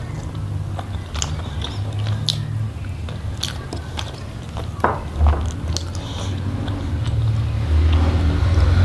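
Close-miked chewing and biting with wet mouth clicks and smacks, over a steady low hum.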